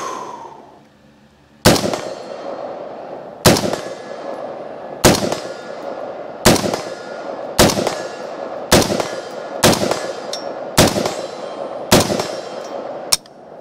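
Semi-automatic rifle shots from a retro M16A1 clone in 5.56 mm: about ten single shots fired at a steady pace, a second or so apart, with a ring hanging on between them. The magazine runs dry on the last shot without the bolt locking back.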